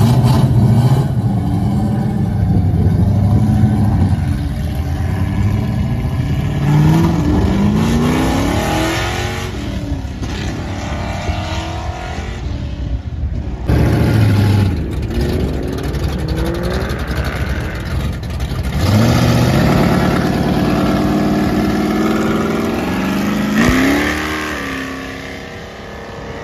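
Two classic American muscle cars pulling away one after the other, first a Dodge Charger, then a green late-1960s Plymouth. Each gives a deep exhaust rumble, then accelerates hard with the engine note climbing several times as it shifts up through the gears. There is a sudden change about halfway through where the second car takes over.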